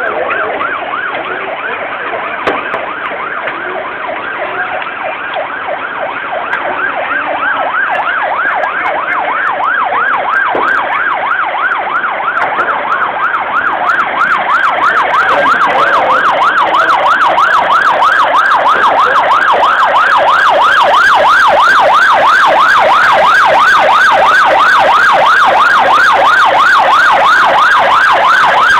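Emergency vehicle siren in a rapid yelp, its pitch sweeping up and down several times a second. It grows louder over the first twenty seconds or so, then holds steady.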